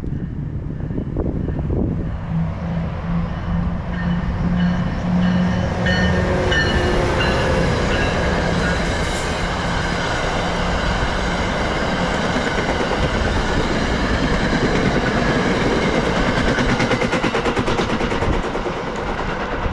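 NJ Transit passenger train led by an ALP-45DP dual-mode locomotive passing close by: a steady engine tone in the first several seconds, then the continuous rumble and clickety-clack of the bi-level coaches' wheels on the rails as the train rolls past.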